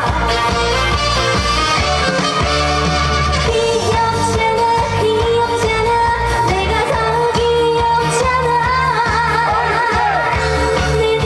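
Korean trot song performed live: a woman singing over an amplified band backing, with a steady beat and bass, her voice wavering in a vibrato near the end.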